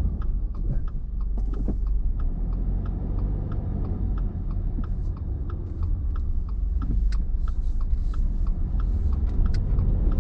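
Steady low rumble of a car running, with many light clicks scattered over it.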